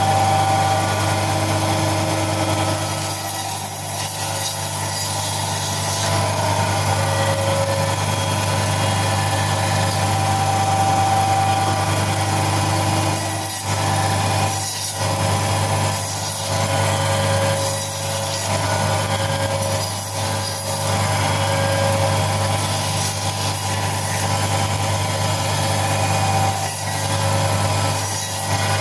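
Electric chicken cutting machine running with a steady mechanical hum as it cuts through chicken. The sound dips briefly several times in the second half.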